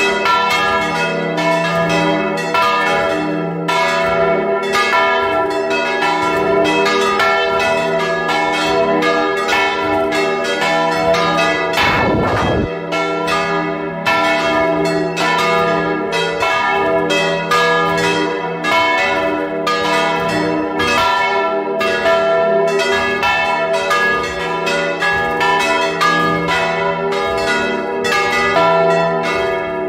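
Bronze church bells cast by the Pasqualini foundry in 1939 ringing close up, with frequent overlapping strokes over a continuous hum of their ringing tones. A short noisy rush cuts across the ringing about twelve seconds in.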